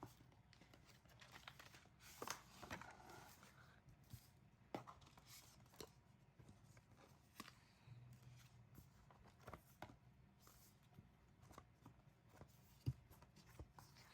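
Faint, scattered rustling and light clicks of K-pop album packaging and photobook pages being handled.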